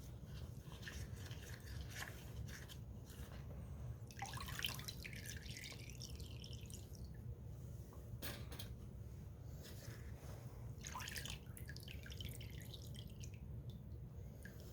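Liquid masonry sealer splashing and dripping as small concrete pieces are dipped into it and lifted out, in a few separate bursts, over a low steady hum.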